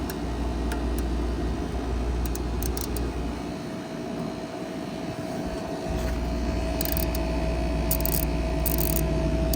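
Wind rumbling on the microphone over the steady hum of an air-conditioning unit. The wind drops out briefly midway. About six seconds in a steady whine joins the hum, and there are a few short scratchy rustles near the end.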